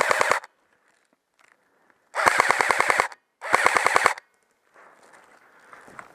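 Airsoft rifle firing on full auto in short bursts of rapid shots, about ten a second: a burst cuts off just after the start, then two more come about two and three and a half seconds in.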